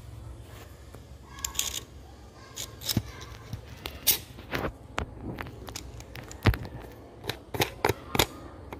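Handling noise from a phone and its handlebar phone mount: about a dozen irregular sharp clicks and knocks close to the microphone, the loudest about two-thirds of the way through, over a low steady hum.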